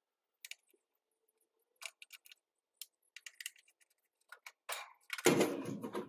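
Scattered small metallic clicks and clinks of a screwdriver and screws as the screws holding an air-conditioner run capacitor in its control box are taken out, with a louder stretch of noise near the end.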